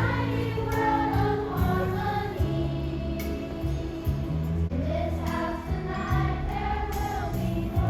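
Choral music: a choir singing over a steady instrumental accompaniment with sustained bass notes.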